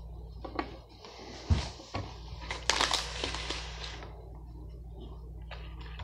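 A plastic food container and its packaging being handled: a few knocks, with a thud about a second and a half in, then crinkling and rustling for a second or so.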